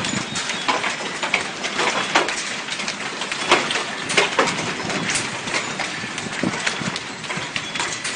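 Hailstorm: hailstones striking in a dense, irregular run of sharp knocks over a steady hiss.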